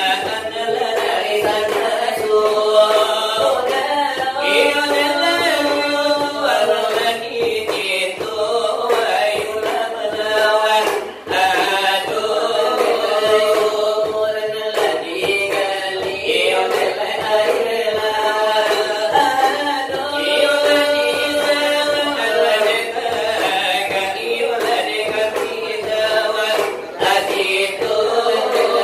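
Salawat dulang: Minangkabau devotional verses chanted in a melismatic line, with quick tapping on a brass dulang tray underneath.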